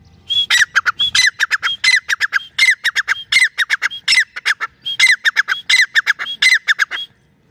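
Grey francolin (teetar) calling loudly: a rapid series of repeated phrases, each a short high note followed by a quick run of lower notes, about one phrase every 0.7 seconds, stopping about seven seconds in.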